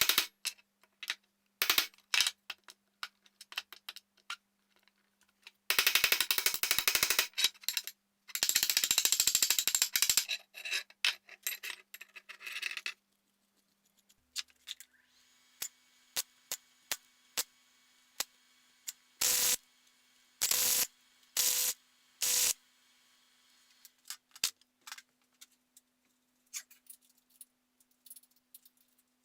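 Crackling of electric arc welding on steel in two runs of a couple of seconds each, with scattered clicks, then four short bursts over a faint steady hum.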